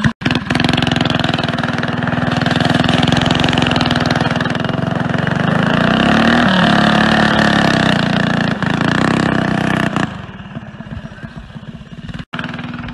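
Go-kart's small gasoline engine running hard at high revs, its pitch swinging up and back down in the middle. About ten seconds in it drops off to a much lower, rougher level.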